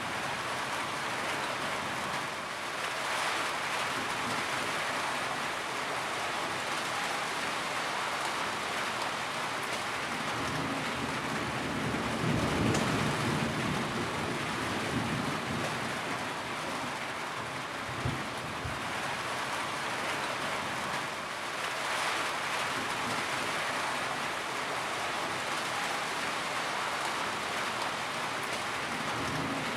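Steady heavy rain with thunder: a low rumble of thunder swells about twelve seconds in, and a shorter low thunder surge comes around eighteen seconds in.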